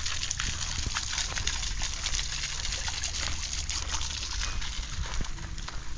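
Garden fountain's single vertical jet falling back onto a rock pile in its round basin: a steady, close splashing and spatter of water.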